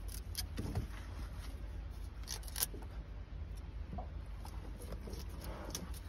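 Fillet knife cutting the fins and tail off a Chinook salmon: a few short clicks and snips as the blade goes through fin and skin, over a steady low rumble.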